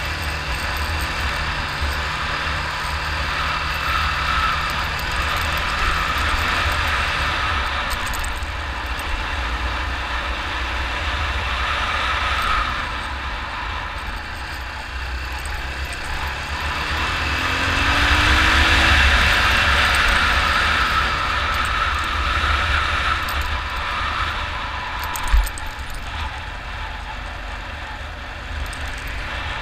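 Yamaha 600 cc motorcycle engine running as the bike rides along a gravel track. Past the middle the engine revs rise and it gets louder for a few seconds, and there is one sharp knock near the end.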